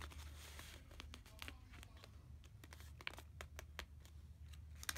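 Faint rustling and soft ticks of a fold-out paper checklist being handled and smoothed flat by hand, over a steady low hum.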